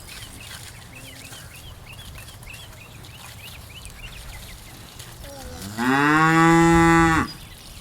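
A cow mooing once, about six seconds in: a single call of about a second and a half that rises at the start, holds steady and then stops abruptly.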